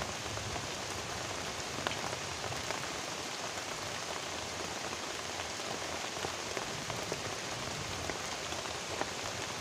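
Heavy rain falling steadily: a dense, even hiss with scattered close drops ticking.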